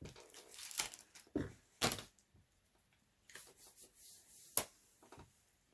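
Plastic snack packaging being handled, rustling and crinkling in short bursts with a few sharp clicks.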